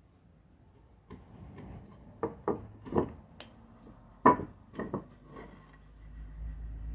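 Wooden pieces being handled, giving a string of about nine sharp knocks and clatters, the loudest about four seconds in, with a low rumble rising near the end.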